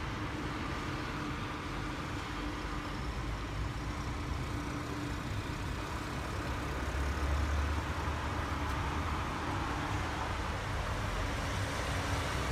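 A motor vehicle running slowly along a snowy, wet street, a steady engine and tyre rumble that swells about seven seconds in.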